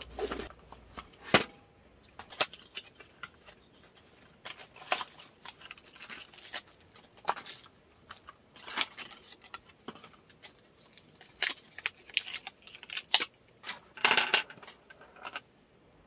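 Unpacking small items from cardboard boxes and plastic wrap on a wooden table: scattered sharp knocks and clicks as boxes and gear are picked up and set down, with short rustles of cardboard and crinkling plastic.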